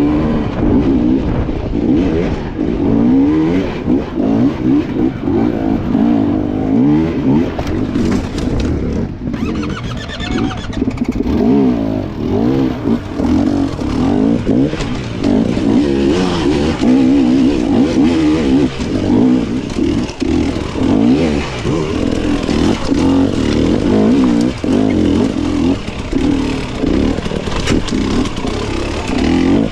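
Enduro dirt bike engine revving up and down continuously as it is ridden over rough terrain, the pitch constantly rising and falling with throttle changes.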